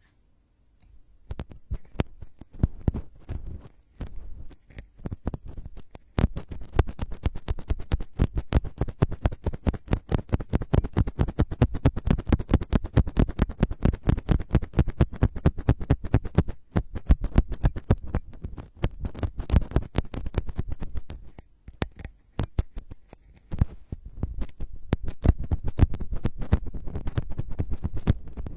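Rapid crackling scratches right on an ASMR microphone, dense clicks with a heavy low end, coming in long bursts with a few short breaks.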